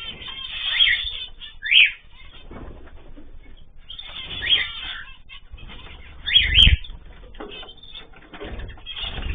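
Ornamental cage birds chirping with short, sharp calls every second or two, with wings flapping.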